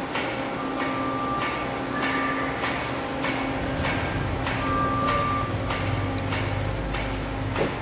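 Doosan Daewoo Puma 2000SY CNC lathe running: a steady machine hum with a regular click roughly every half second. A low rumble swells from about four seconds in until near the end.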